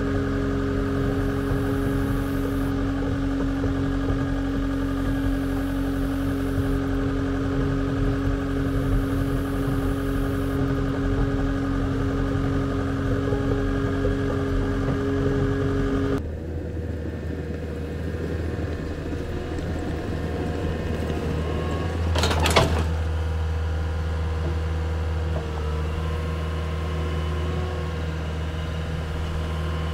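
Skid steer's engine running steadily as it drives, first heard from the operator's seat, then from outside with a deeper, lower hum. About three quarters of the way through comes one sharp, loud clatter, the micro excavator on its forks jolting over a bump.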